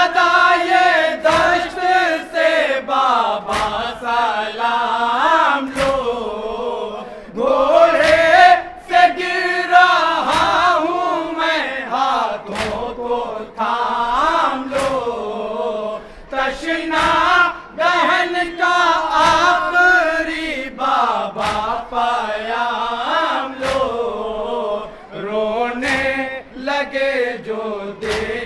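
Men's voices chanting a nauha, a Shia mourning elegy, in a slow melodic line. Frequent sharp smacks run through it.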